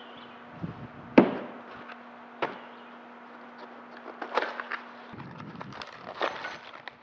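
Sharp wooden knocks and clatter as pieces of wood are handled and set down, the loudest about a second in and several more spread through. A steady low hum stops about five seconds in.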